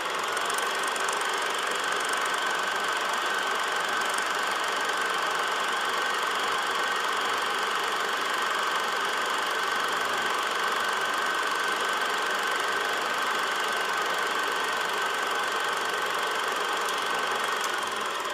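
Steady whirring and clatter of a running film projector, with a thin steady whine over it, tapering off near the end.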